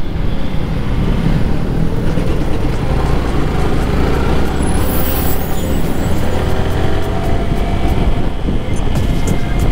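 Yamaha motorcycle riding through city traffic: its engine running steadily under way, mixed with road and wind noise and the engine of a bus close alongside, the engine note rising gently a few times.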